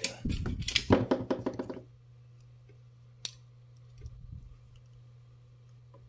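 Small metal clicks and handling clatter as a screw-type BNC connector is worked onto the end of an RG6 coaxial cable. The clatter is dense for the first two seconds, then a single sharp click comes a little past the middle, with a low steady hum underneath.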